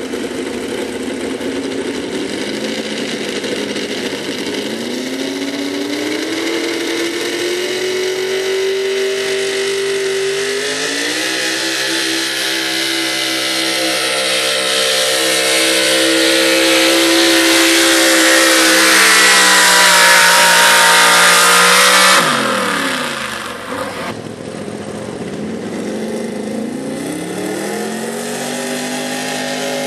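Super Street gas pulling truck's engine running at full throttle through open hood stacks while dragging a weight-transfer sled. The revs climb, step up once, hold high and loud, then drop sharply about 22 seconds in as the pull ends. Near the end another truck's engine revs up as the next pull begins.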